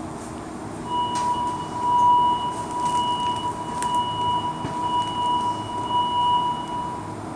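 Electronic door-warning tone of a Montreal metro Azur car sounding while the train stands at a platform with its doors open: one steady high beep that starts about a second in and holds for about six seconds, over the low hum of the stopped car, with a short click partway through.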